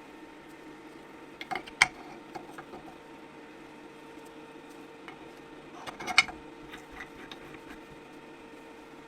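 Steady machine hum with two short clusters of sharp clicks, about a second and a half in and again about six seconds in.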